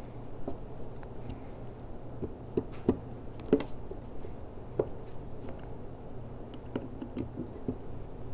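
Screwdriver turning the screws of a small engine carburetor during reassembly: scattered light clicks and taps of metal on metal, a few sharper ones in the middle.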